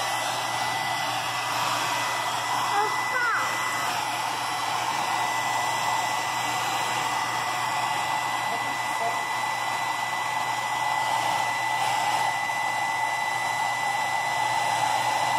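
Handheld electric hair dryer running steadily, blowing air on a wet dog, with a steady high whine over the rush of air. A brief high squeak comes about three seconds in.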